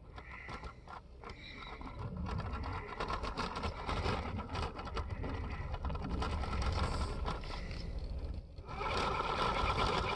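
Stock Deadbolt RC rock crawler's electric motor and gears whining as it drives over rock, with tires scraping and grinding on the stone. After a short pause the whine comes back louder near the end.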